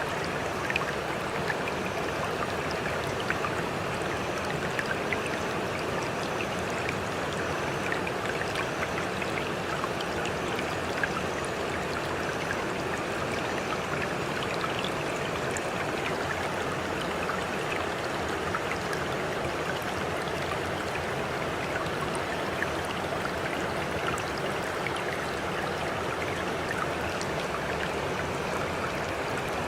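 Running water flowing steadily, with small drips and splashes ticking over the continuous rush.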